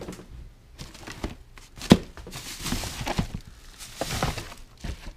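Rummaging through a cardboard box of wiring and parts: cardboard and plastic rustling and crinkling, with scattered knocks and clicks, the sharpest about two seconds in.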